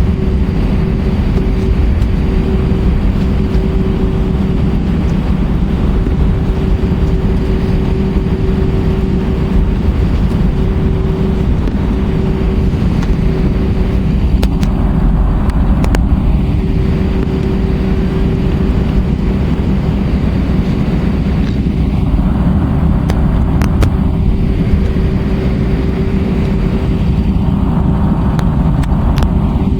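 Steady roar of airflow and the IAE V2500 turbofan engines, heard inside the cabin of an Airbus A320-232 in flight, with a steady hum running under it.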